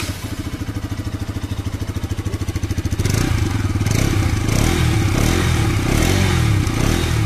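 Bajaj Pulsar RS 200's single-cylinder, liquid-cooled 200 cc engine running through its stock exhaust: an even idle beat at first, then louder throttle blips from about three seconds in, the engine note rising and falling.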